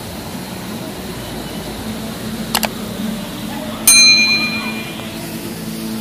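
Subscribe-button sound effect: a sharp mouse click, then just over a second later a bright bell ding that rings out and fades over about a second, over a steady background hum.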